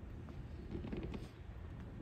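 Low steady room rumble with faint footsteps of dress shoes on a hard floor, clustered about a second in.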